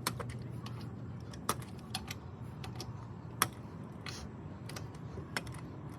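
Irregular light clicks and taps of a wrench working on lug nuts, about half a dozen over a few seconds, as the nuts are loosened.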